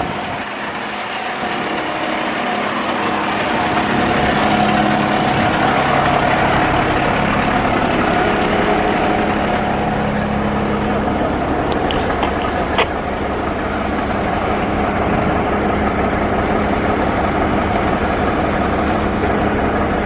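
Diesel engines of parked fire trucks idling steadily, with a constant hum that grows louder over the first few seconds. A single sharp click about thirteen seconds in.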